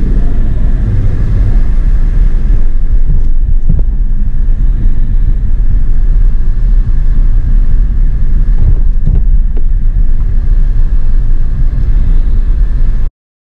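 Steady low rumble of an Audi TT's engine and tyres, heard from inside the cabin as it drives slowly. It cuts off suddenly near the end.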